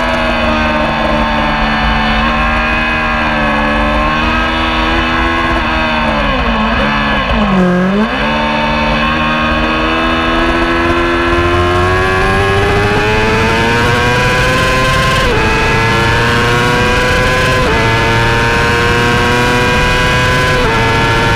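Racing motorcycle engine on board the bike: revs fall into a corner, bottoming out about eight seconds in, then climb hard through the gears on the following straight, with three upshifts heard as sudden drops in pitch.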